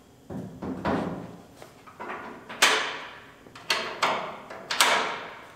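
The steel tailgate of a 2004 Chevy Silverado pickup clunking against its hinges and latches as it is lifted and seated: about six sharp metallic knocks, each ringing briefly, the loudest about two and a half seconds in.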